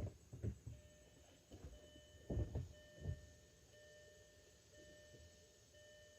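A few soft knocks and thumps, then a 2007 Audi A8's dashboard warning chime beeping about once a second, with no sound of the starter cranking: the car's no-crank fault.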